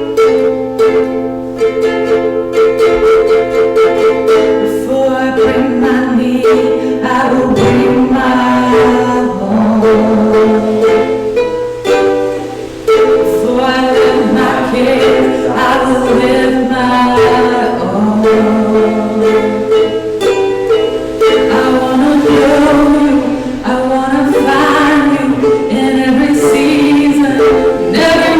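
Live worship band playing an upbeat, laid-back song led by a strummed string instrument, with voices singing the melody from about eight seconds in.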